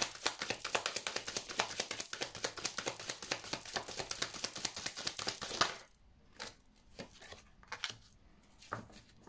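A deck of oracle cards being shuffled by hand, a fast run of papery clicks and flutters that stops about six seconds in. After it come a few soft, separate taps as cards are handled and one is laid on the table.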